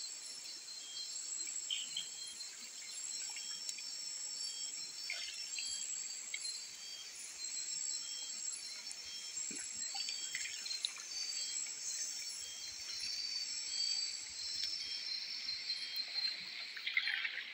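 Night insect chorus of crickets and similar insects: several steady high trills overlaid by evenly pulsed chirping. Now and then comes a faint splash and swish of water as rice is rinsed by hand in an aluminium pot, a little louder near the end.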